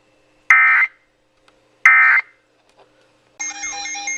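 Emergency Alert System end-of-message data bursts: two short, identical screeching digital bursts about a second and a half apart, marking the end of the alert broadcast. About three seconds in, a different electronic alert tone starts, pulsing rapidly.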